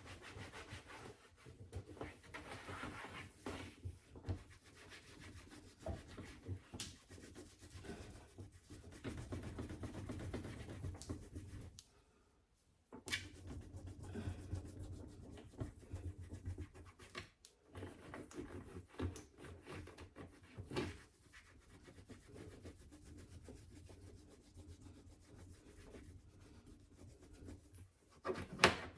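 Rag wiping and scrubbing a dishwasher's surface by hand, in irregular rubbing strokes with a few light knocks, and a brief pause about twelve seconds in.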